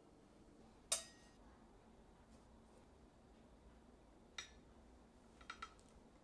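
Quiet room with a few sharp clicks from a metal palette knife tapping the cake turntable. The loudest click, about a second in, has a brief ring; another comes after about four seconds, then two light ticks.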